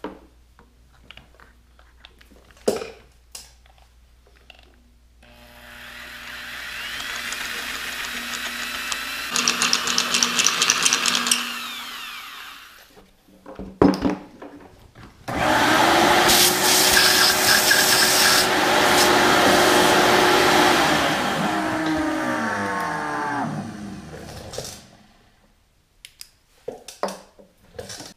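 Electric drill boring out a stripped 5/8-inch bolt hole in a cast-iron tractor rear-end case for a Helicoil thread insert. It runs twice: a first run that builds up and stops about twelve seconds in, then a louder, longer run that winds down with a falling pitch near the end. A few clicks and knocks come before and between the runs.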